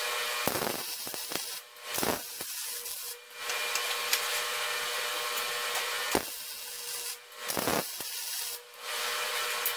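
Wire-feed welder arc crackling and hissing as steel nuts are welded onto threaded rod, in runs broken by several short pauses, with a few low thuds between them.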